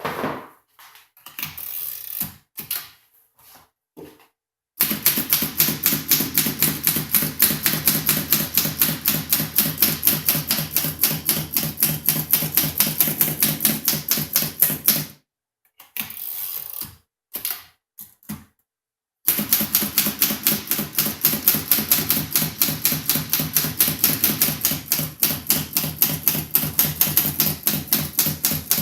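A 1934 Underwood Junior portable typewriter being typed on at a quick, steady pace, its typebars clacking against the platen in rapid sharp strokes. It starts with a few scattered clicks and knocks, then two long runs of typing with a short break of a few clicks in between. The machine is freshly restored and types cleanly.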